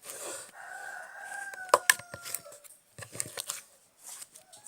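Slime being stretched and worked by hand, crackling and snapping, with two sharp pops just under two seconds in. Behind it a rooster crows, one long call slightly falling at the end, and starts another near the end.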